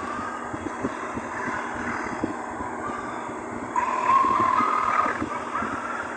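An enormous number of sneeze sounds stacked on top of one another, merging into one continuous dense noise with wavering tones through it, growing louder about four seconds in.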